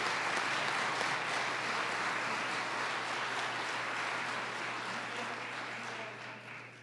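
Audience applause from a large assembly, a steady spell of clapping that dies away near the end.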